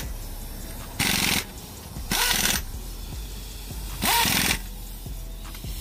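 Pneumatic impact wrench hammering lug nuts onto a car wheel in three short rattling bursts, each about half a second long, with a second or two between them.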